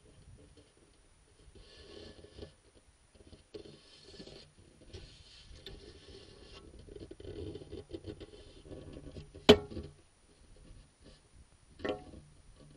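Handling noise from an action camera being moved down to the water's edge: scattered rubbing and scraping, with one sharp loud knock about three quarters of the way through and a smaller knock near the end.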